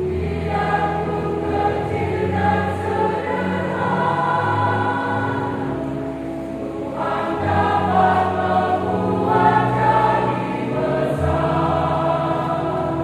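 A women's church choir singing in harmony, several voice parts holding long notes together.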